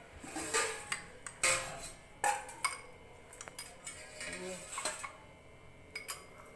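A metal spoon scraping and clinking against a glass tumbler while ground almond and nut paste is scraped around it. There is a cluster of sharp clinks in the first three seconds, then a few lighter taps.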